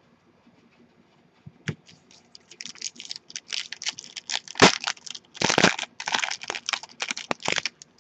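Foil wrapper of a 2013 Topps Strata football card pack being torn open and crinkled by hand: a single tap about a second and a half in, then a dense run of crinkling and tearing from about two and a half seconds in, loudest near the middle.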